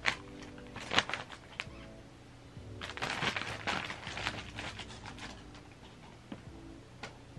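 Brown kraft paper crinkling and crackling under a cat's paws as it walks and then hurries across the sheets: a few sharp crackles early, then a dense run of rustling crinkles from about three to four and a half seconds in.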